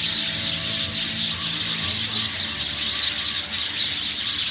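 A flock of sparrows chirping densely and continuously, many birds at once.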